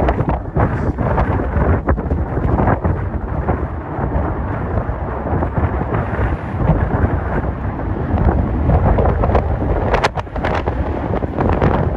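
Jet engine roar from a Boeing 737 MAX 8's CFM LEAP-1B turbofans as the airliner passes low overhead on final approach, mixed with heavy wind buffeting on the microphone. The sound is a loud, steady rushing rumble.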